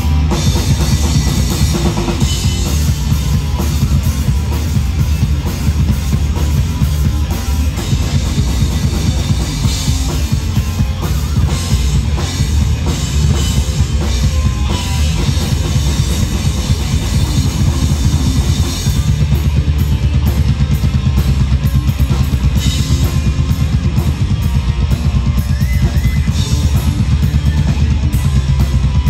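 A live rock band playing loudly: a drum kit with bass drum and cymbals keeps a steady beat under electric guitars.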